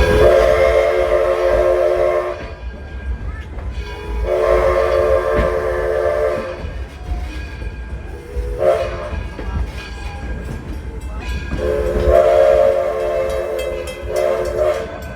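Steam locomotive's chime whistle blowing four blasts, long, long, short, long: the standard signal for approaching a grade crossing. The train's low running rumble continues underneath.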